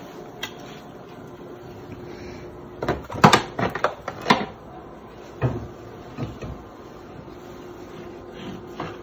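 Cookware being handled on a kitchen counter and hob, with a quick cluster of sharp knocks and clatter about three seconds in and a few single knocks after. A steady low hum runs underneath.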